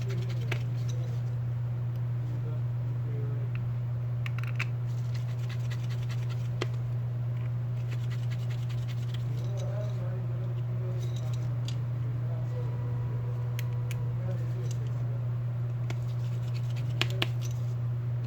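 Small scattered clicks and scratches from handling a smartphone's parts and tools, with a pair of sharper clicks near the end, over a steady low hum.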